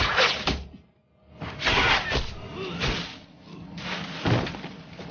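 Action-film fight soundtrack: a run of sudden loud hits and swishes, about four of them, with a steady musical score underneath and a brief drop-out about a second in.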